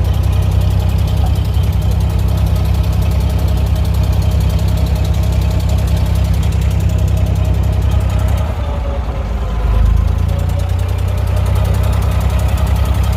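Diesel engine of a Dubai abra (wooden water taxi) running steadily with a low, pulsing rumble; it dips briefly about eight seconds in, then swells again.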